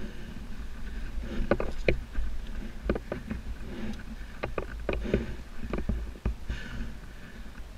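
Mountain bike descending a dirt singletrack trail: a steady low rumble of tyres and air on the helmet camera, with a scatter of sharp clicks and rattles from the bike over bumps and roots, thickest through the middle.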